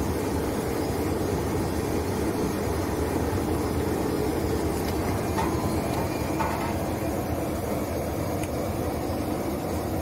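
Root-vegetable washing machine running steadily, its soft brush roller turning carrots in a water-filled stainless-steel tank, with a few faint knocks about midway.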